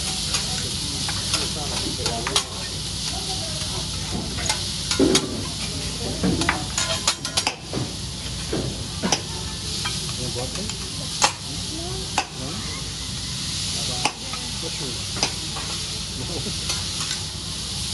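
Steak, scallops and chicken breasts sizzling on a hibachi steel griddle, a steady hiss. Over it come sharp metal clicks and taps of the chef's utensils against the griddle, a quick cluster about five to seven seconds in and single ones every second or two after.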